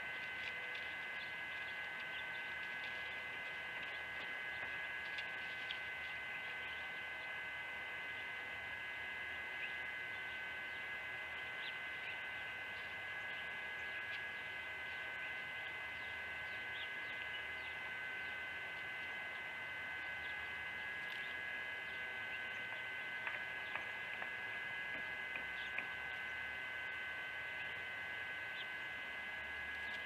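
A steady hum with a constant high-pitched whine and a few faint, scattered ticks.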